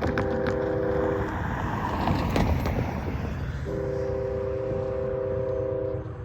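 Canadian Pacific freight locomotive's air horn sounding a chord of several notes: a short blast, then a longer one about three and a half seconds in, over the low rumble of the train. A short-then-long pair like this is the typical close of the horn signal for a road crossing.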